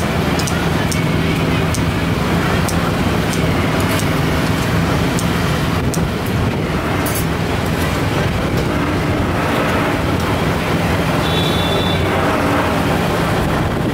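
Steady motor-vehicle noise, an engine's low hum holding under a wash of traffic noise, with a short high beep about eleven seconds in.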